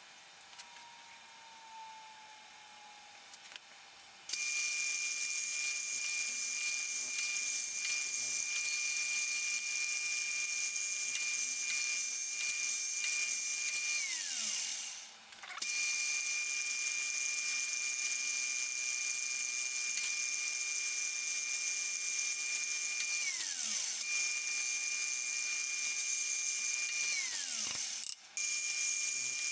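High-speed electric power tool running with a steady high-pitched whine and hiss. It is switched off three times, its pitch falling as the motor spins down, and started again each time.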